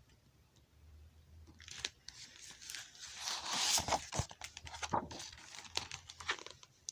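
A picture book's page being handled and turned: rustling and crinkling with many small clicks, building up about a second in and loudest in the middle.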